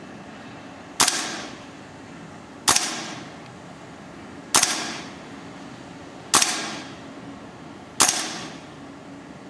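Inokatsu M5 gas blowback airsoft rifle firing five single shots, about one and a half to two seconds apart, each a sharp crack with a short ringing tail. Each shot reads up to about 107 dB right next to the ear.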